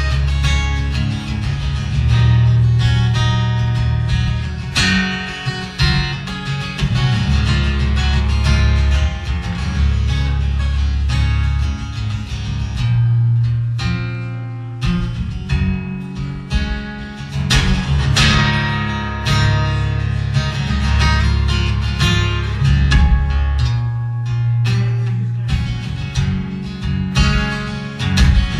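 Solo acoustic guitar playing an instrumental tune, with deep bass notes under frequent sharp plucked attacks.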